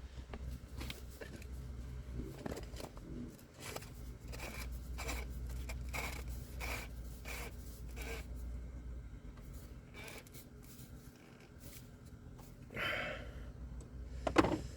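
Plastic oil filter housing cap being threaded on by hand: a row of light clicks at roughly even spacing as it turns, then a scrape and a sharp knock near the end.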